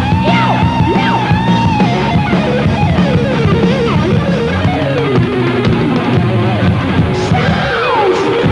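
Heavy metal band playing live: an electric guitar lead over bass and drums, opening on a long held, wavering note and then moving into quick runs full of string bends.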